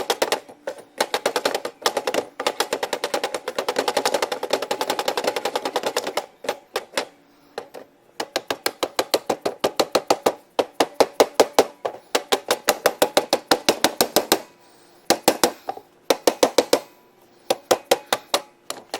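Hand ratchet wrench clicking in quick runs of sharp ticks that stop and start, with a metallic ring behind them, as nuts or bolts are run down.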